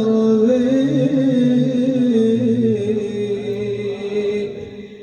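Devotional chanting of a madih (Islamic song in praise of the Prophet): voices holding long, slowly gliding notes without distinct words, fading out toward the end.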